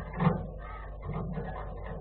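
A few short animal calls, the loudest just after the start and fainter ones about a second in, over a steady low hum.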